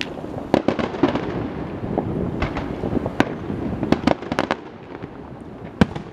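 Aerial fireworks bursting: an irregular run of sharp cracks and pops over a low rumble, with one loud bang near the end.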